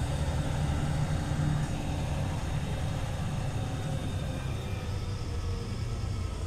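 Steady low rumble of a LiAZ 5292.22 city bus under way, heard from inside the passenger cabin: engine and road noise.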